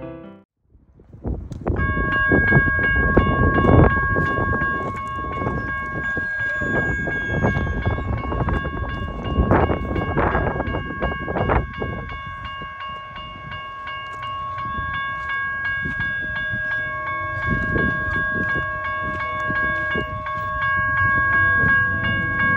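A grade-crossing warning bell rings steadily at one pitch from about two seconds in, over a heavy low rumble of an approaching freight train. The rumble is loudest in the first half.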